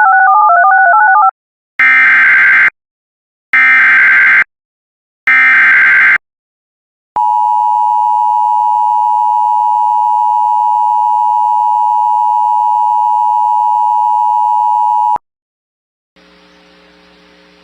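Emergency Alert System alert tones: a short warbling two-note beep, then three one-second bursts of screeching SAME header data, then the two-tone EAS attention signal (853 and 960 Hz) held steady for about eight seconds and cutting off sharply. A faint low hum follows near the end.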